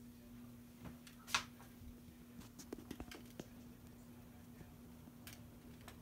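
Ceiling fan running with a steady low hum, with scattered light clicks and taps over it, the sharpest about a second in and a small cluster near the middle.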